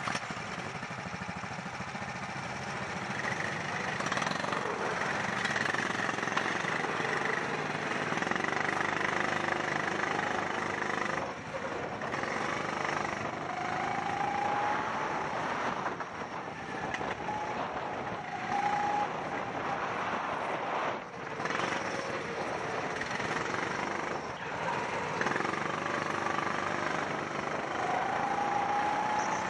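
Rental go-kart engine running under throttle, heard from the driver's helmet as the kart accelerates: the pitch rises in several revving glides on the straights, with two brief lifts off the throttle where the sound drops for a moment.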